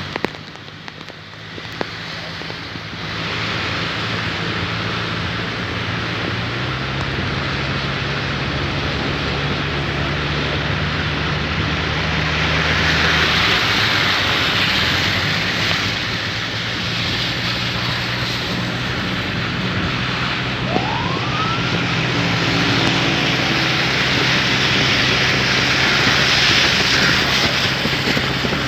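Steady rain, with an engine humming low and steady underneath that shifts pitch a couple of times. A short rising tone sounds about two-thirds of the way through.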